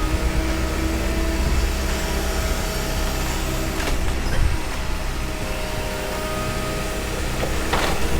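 Komatsu 170 excavator's diesel engine running steadily while it mulches demolition debris, with a few sharp cracks of wood being crushed about halfway through and near the end.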